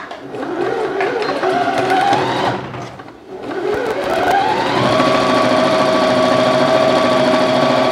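Elna 450 electric sewing machine stitching a straight seam through fabric. The motor whine rises as it speeds up, drops away briefly about three seconds in, then rises again and holds a steady speed.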